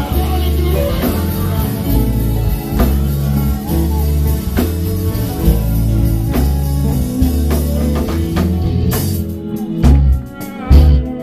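Live gospel band playing with drum kit and electric guitar over steady low bass notes, with no singing. Near the end the playing breaks into a few loud, separate hits.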